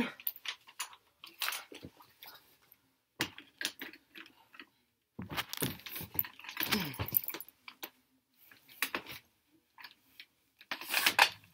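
Scattered clicks, taps and light metallic rattles of a shotgun hot stick handling a stirrup made of thick #6 solid copper, hooking it back onto a model line wire. A denser run of knocking and rattling comes about halfway through.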